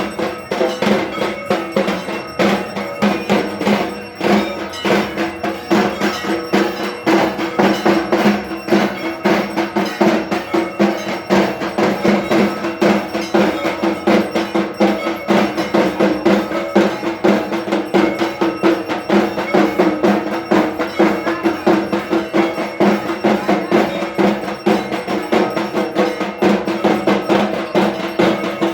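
Drums beaten fast and continuously together with clanging, ringing metal bells, the ritual percussion of a Durga Puja evening aarti.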